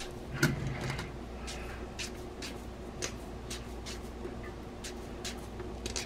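A freshly harvested potato being scrubbed clean by hand: short rubbing strokes about twice a second, with a knock about half a second in, over a steady low hum.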